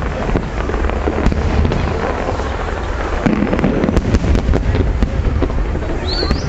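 Fireworks display bursting in quick succession: a continuous low rumble of booms with many sharp crackles and pops layered over it.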